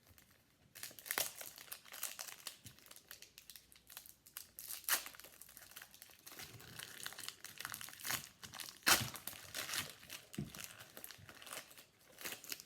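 Foil trading-card pack wrapper crinkling and tearing as it is handled and opened, with many irregular crackles and a few louder crinkles.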